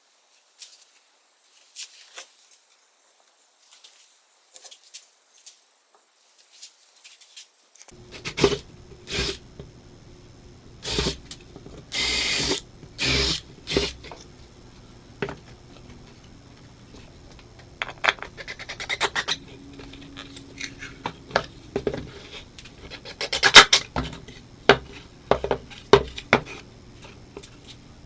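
Hand work on wood: a few faint ticks, then from about eight seconds in, repeated scraping and rubbing strokes with small knocks, a few of them drawn out for about a second.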